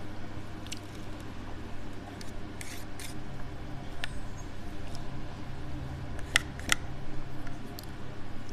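A metal teaspoon scraping and clicking against a plastic pudding cup while scooping, with several short sharp clicks, two close pairs about three and six and a half seconds in.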